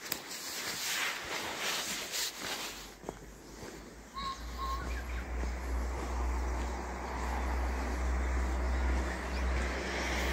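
Outdoor ambience with wind rumbling on the microphone from about four seconds in, and a brief bird chirp just after it starts. In the first three seconds there are irregular knocks and rustles.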